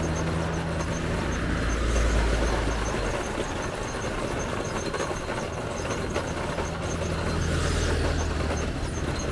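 An engine running steadily with a low hum, over general street noise.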